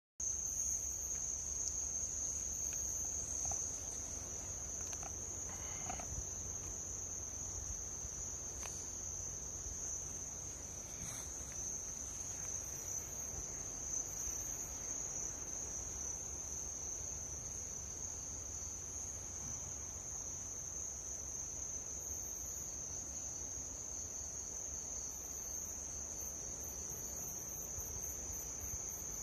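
Night insect chorus: crickets trilling in one continuous high-pitched tone, with another insect chirping in short groups above it that quicken into a rapid pulsing near the end.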